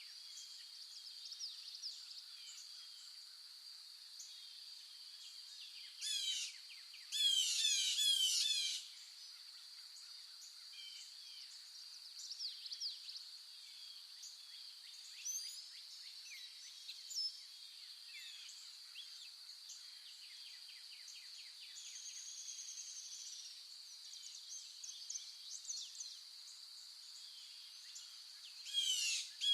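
Wild birds chirping and singing over a steady, high-pitched insect drone. A louder bird phrase of rapid downward-sweeping notes comes about six to nine seconds in and again near the end.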